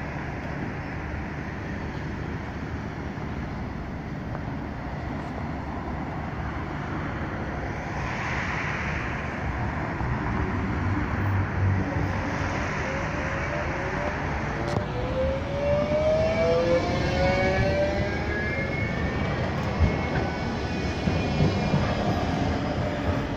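Bombardier Flexity 2 electric tram standing at a stop with a steady hum, then pulling away just past halfway, its traction motors giving a rising whine in several tones as it picks up speed.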